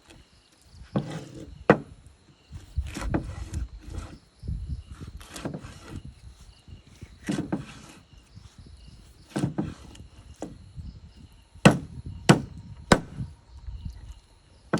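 A knife chopping through a large catla fish on a chopping block: about a dozen heavy strokes at uneven gaps of a second or two, ending with three hard strikes in quick succession.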